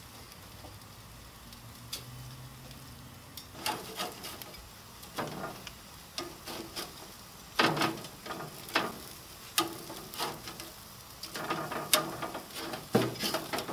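Blackened-seasoned mahi-mahi pieces sizzling on a perforated metal grill pan over a gas grill running as hot as it will go. Repeated sharp clicks and scrapes of a metal spatula against the pan, loudest in the second half, and a stronger hiss near the end.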